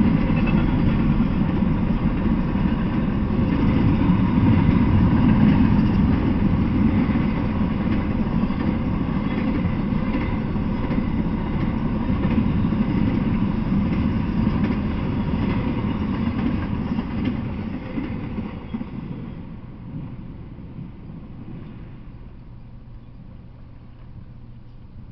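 Intermodal container freight train rolling past, its steel wheels running on the rails in a steady rumble. The noise fades away over a few seconds near the end as the last cars go by.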